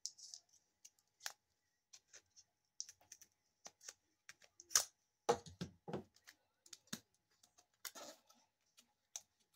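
A folding utility knife cutting into a taped Hobby Armor cardboard card sleeve as it is worked open: irregular clicks, scrapes and crinkles.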